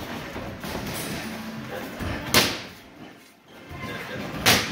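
Two punches from boxing gloves landing on focus mitts: sharp, loud slaps about two seconds apart.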